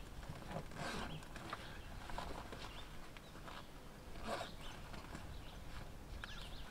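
Hands rummaging through fishing gear in the back of an SUV: faint rustling and soft knocks, louder about a second in and again about four seconds in. A few faint bird chirps are heard in the background.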